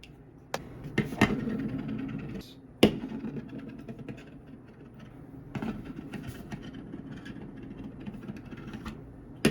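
Small plastic clicks and knocks from handling a Beyblade top and its parts, with the sharpest knock about three seconds in and a few lighter clicks later, over a steady low hum.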